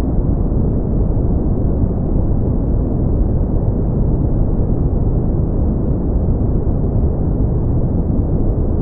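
Steady brown noise: a deep, even rumble-like hiss, strongest in the low end and fading above the midrange, with no change in level.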